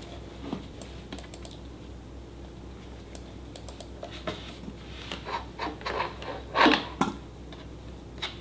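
Typing on a laptop keyboard, light key clicks, followed by a run of louder, fuller bursts of sound about five to seven seconds in.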